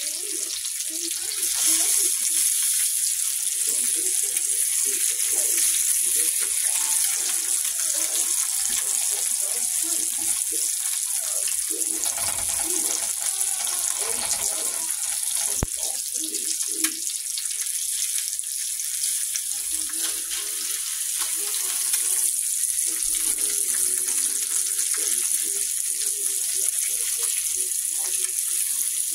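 Eggs frying in a cast iron skillet, a steady high sizzle of hot fat, as a spatula turns them, with one sharp tap about halfway through.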